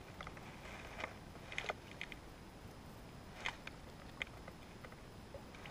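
Faint, scattered clicks and ticks from a spinning rod and reel being handled while a lure is worked, about half a dozen sharp ticks spread irregularly over a few seconds.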